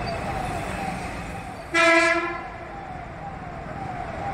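Steady traffic noise with one loud horn blast about two seconds in, lasting about half a second. Under it, a fainter tone falls and repeats about twice a second.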